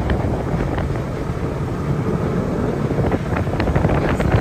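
Side-by-side UTV's engine running steadily as it drives along a dirt trail, with wind buffeting the microphone. A few short clicks and rattles come near the end.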